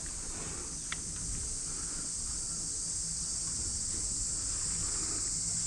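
Steady high-pitched chirring of insects, with a low rumble beneath and a single faint click about a second in.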